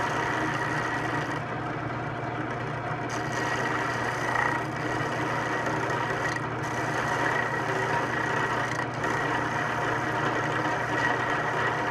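Drill press motor running steadily, spinning a wooden disc while a bar of metal polishing compound is rubbed against its edge to load it. A steady low hum with a thin, even high whine over it.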